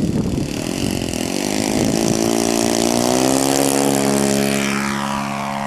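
Radio-controlled model airplane's motor and propeller in flight, a buzzing drone that rises in pitch over the first couple of seconds and then holds steady. A higher whine falls away about five seconds in as the plane passes. There is wind noise on the microphone at the start.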